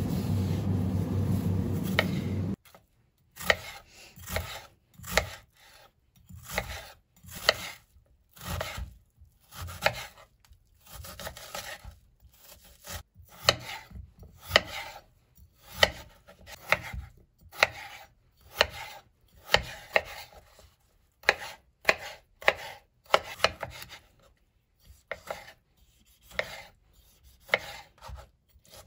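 A steady low rumble for the first couple of seconds cuts off suddenly; then a knife chops food on a cutting board in uneven strokes, about one to two a second.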